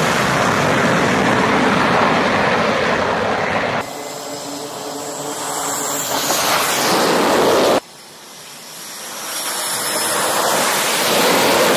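Jet fighters' engines at full thrust during carrier catapult launches: a loud, steady rush of jet noise with a high whine over it. It drops abruptly twice, about four and eight seconds in, at cuts between shots, and each time swells back up as the next jet launches.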